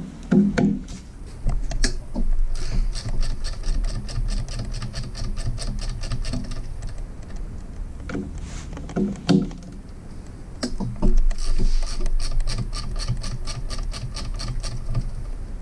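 Ratcheting wrench clicking in quick, even runs as it backs the nuts off the crankshaft brace of an engine, with a few short dull knocks between the runs.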